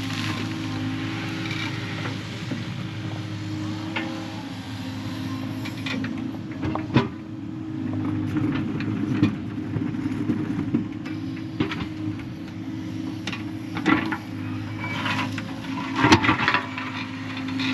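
Excavator diesel engine running steadily while digging, with scattered sharp knocks and scrapes of the bucket, the loudest about 7, 14 and 16 seconds in.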